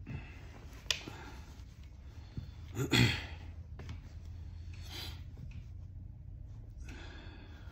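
A man's breathing through a blocked nose, sniffing and snorting from a head cold. The loudest sniff comes about three seconds in, with softer breaths later and a short click about a second in.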